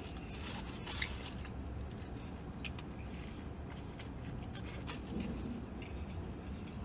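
A person biting into a toasted sub sandwich and chewing it, with small crunches and crackles of the bread over a steady low hum.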